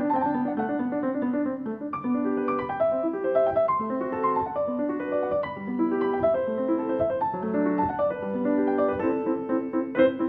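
Background piano music, a steady run of notes stepping up and down over repeated chords.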